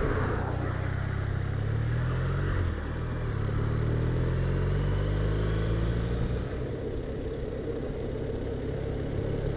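BMW R1200RT boxer-twin engine accelerating from the rider's seat. Its pitch climbs, drops at a gear change about three seconds in, then climbs again, over steady wind noise.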